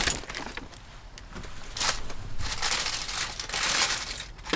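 Paper burger wrapper crinkling as a McDouble is unwrapped by hand, in irregular bursts, busiest in the second half.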